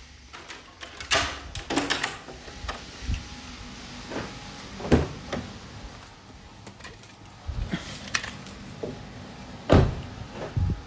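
Handling noise: irregular knocks, rattles and rubbing as things are moved about, the loudest knocks about five and ten seconds in.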